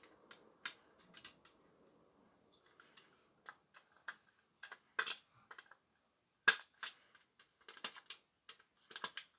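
Small screwdriver and fingers working a circuit board out of an LRS R8500 restaurant pager's plastic housing: irregular sharp clicks and taps of plastic and metal, the sharpest about six and a half seconds in.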